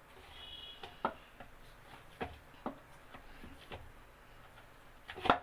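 Atta dough being kneaded by hand in a bowl: irregular soft knocks and thumps as the dough is pressed and the bowl shifts, with the loudest knock just before the end.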